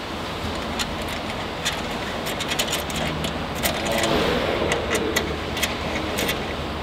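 An Allen key clicking and tapping in the socket-head bolts of a stainless-steel piston filler's clamps as the bolts are undone: irregular small metallic clicks.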